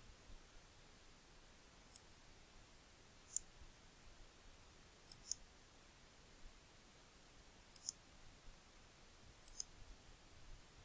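Computer mouse clicking, about eight sharp clicks, some single and some in quick pairs, a second or two apart, over faint room hiss.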